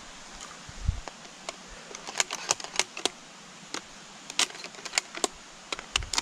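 Scoped hunting rifle being handled: an irregular run of sharp metallic clicks and light rattles, bunched about two seconds in and again from about four seconds on, with a couple of dull bumps.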